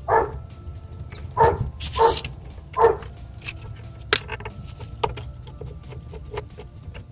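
A dog barking, about four short barks in the first three seconds, followed by a few sharp clicks and taps of tools on the pump's wiring terminals.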